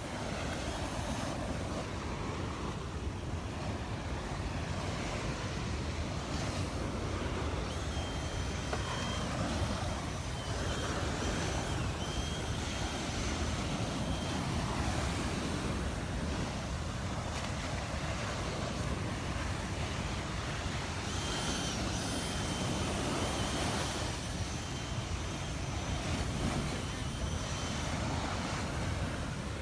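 Gulf of Mexico surf washing onto the beach, with wind buffeting the microphone in a steady low rumble.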